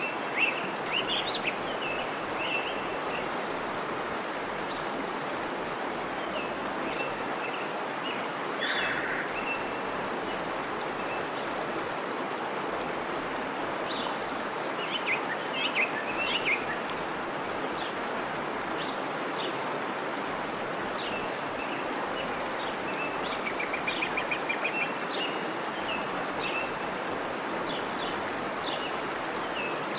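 Steady rush of a waterfall, with songbirds chirping and calling over it now and then, including a quick trill later on: a recorded waterfall-and-birdsong relaxation ambience.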